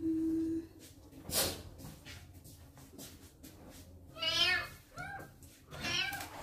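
Young kitten meowing three times: a long wavering meow about four seconds in, then two shorter ones. A brief steady hum at the very start and a short rustle about a second and a half in.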